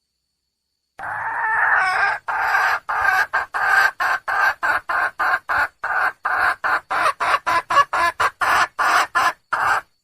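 Junglefowl hen calling for a mate. One drawn-out note comes about a second in, then a quick run of short clucks, about three a second, which stops just before the end.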